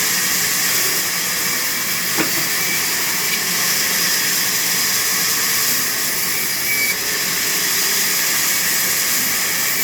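Sawmill saw running steadily with a loud, even hiss-like noise and a faint knock about two seconds in.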